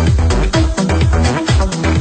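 Electronic dance music with a steady, driving beat and strong bass.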